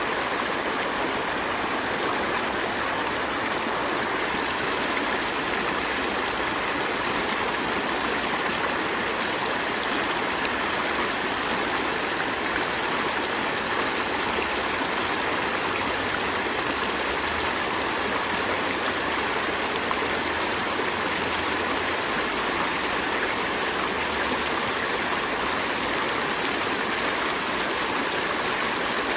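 A gentle river stream flowing, a steady, even rush of running water.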